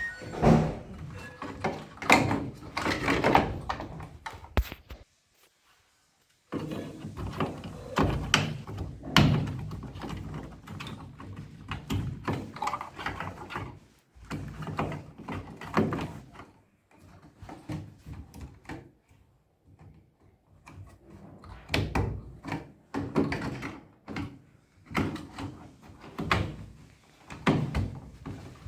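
LG top-load washing machine running after its water level sensor was replaced, giving irregular thuds and clunks, with a short silent break about five seconds in.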